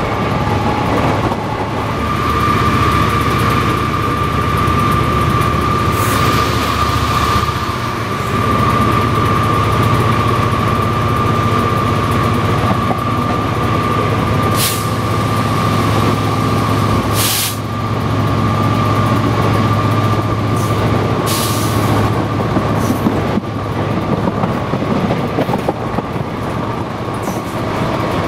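Class 67 diesel locomotive working a train, its EMD two-stroke V12 engine giving a steady low hum and a steady high whine over rolling wheel and rail noise. A few sharp clatters pass by along the way.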